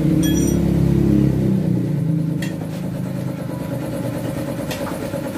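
An engine running, louder over the first second and a half and then settling to a lower steady level, with a few light clicks.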